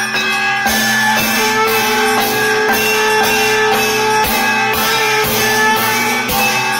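Devotional aarti music playing, with held instrumental tones over a steady beat.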